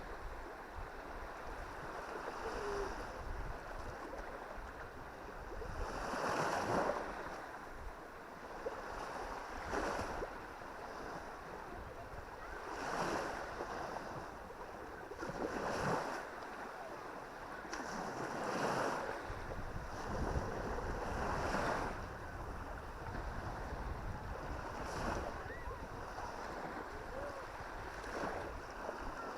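Small Baltic Sea waves breaking and washing up a sandy beach, a surge of surf every few seconds over a steady wash, with wind rumbling on the microphone.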